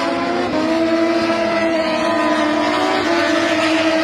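MotoGP racing motorcycle engines running at high revs as the bikes approach along the track, with a shift in engine pitch about half a second in and again about three seconds in.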